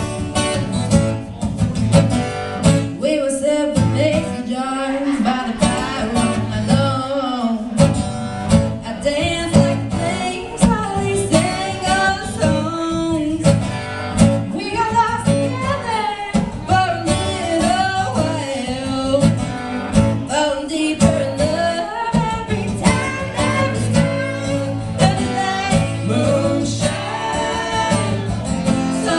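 Live acoustic guitar strummed in a steady rhythm, with a woman singing over it.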